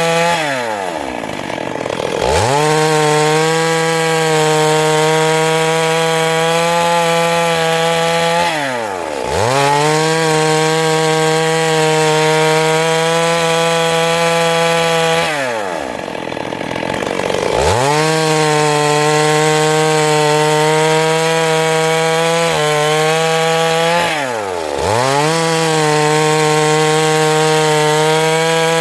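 Two-stroke chainsaw running at high revs while cutting wood. Four times, the revs fall away briefly as the throttle is eased and then climb back to full speed.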